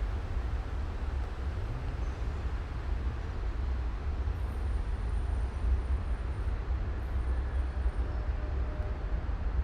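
Steady low outdoor rumble with an even hiss above it, and a few faint high peeps in the middle.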